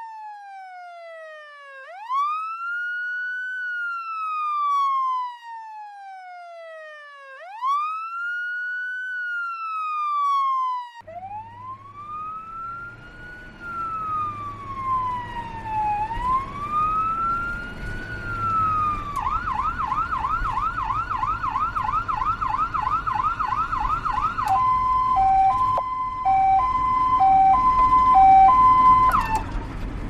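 A run of emergency vehicle siren sounds. It opens with a wailing siren sweeping slowly up and down, about every five seconds, and from about 11 seconds in the wail has traffic noise beneath it. About 19 seconds in it switches to a fast yelp of roughly three sweeps a second, and about 24 seconds in to a two-tone hi-lo siren alternating between two pitches.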